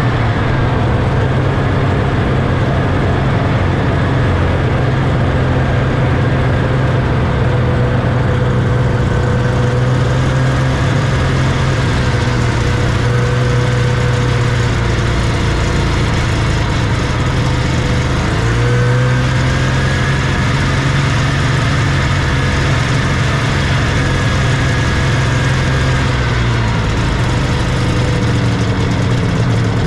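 Vintage Scorpion snowmobile's two-stroke engine running steadily under way, heard close up from on the sled. The engine note dips briefly a little past halfway, picks back up, and drops lower near the end.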